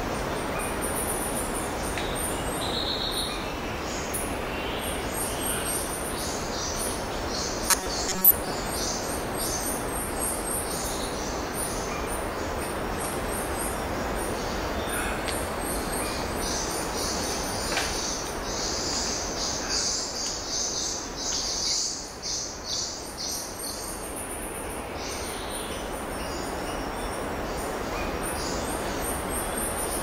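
Natural soundscape: a steady rushing noise under many short, very high chirps repeated over and over from small animals, with a denser pulsing chorus of calls in the middle. Two sharp clicks come about eight seconds in.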